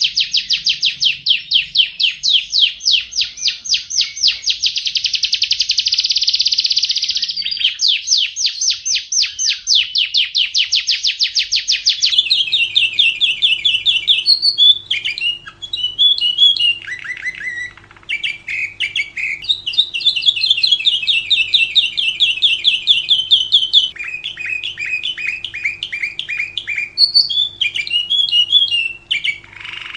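Lovebird singing a long, fast run of repeated shrill chirps. About twelve seconds in the recording changes abruptly to more varied lovebird chirping and trilling, broken by short pauses, over a faint steady hum.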